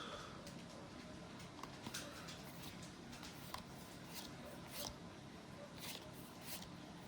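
Faint rustling and light clicks of Pokémon trading cards being handled and flipped through, a few short sounds every second or so.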